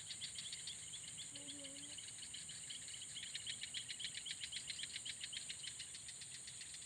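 Night insects calling: a fast, even pulsing trill over a steady high-pitched hiss.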